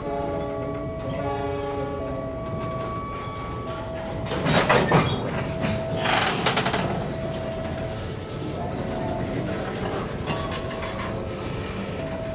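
A long container freight train rolling slowly past, its wheels clattering on the rails, with two louder bursts of rail noise around four and six seconds in. A locomotive horn chord sounds briefly at the start, and a steady beep repeats about every second and a half throughout.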